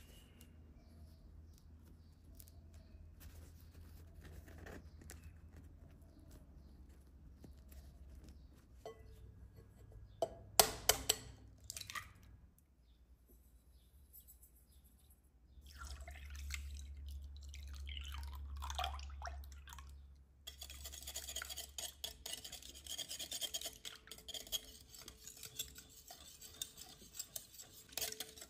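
Ingredients going into a glass mixing bowl: a few sharp knocks, then pouring. From about twenty seconds on, a wire whisk beats a runny batter with rapid clicks and scrapes against the glass.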